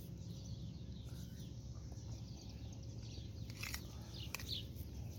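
Faint bird chirps over a steady low background hum, with two light clicks a little under four seconds in.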